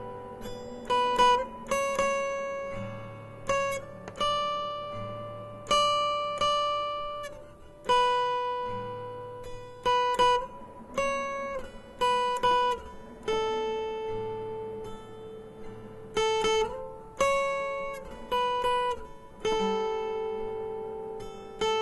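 Background music: an acoustic guitar playing a slow melody of single plucked notes, each ringing out and fading, with occasional slides between notes.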